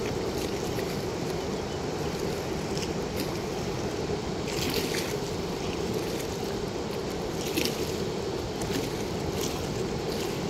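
Steady rush of water pouring through a river weir's sluice gate, with short sharper hisses now and then, the clearest about five seconds in and near eight seconds.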